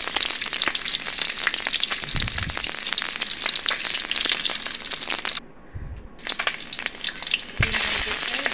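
Hard-boiled eggs deep-frying in hot oil in an iron karahi: a steady sizzle thick with small crackling pops. It drops away for a moment about two-thirds of the way through, then carries on.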